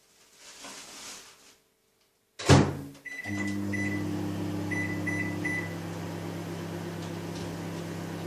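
Microwave oven door shut with a sharp knock, then about five short keypad beeps as the three-minute time is set, and the oven starts running with a steady low hum.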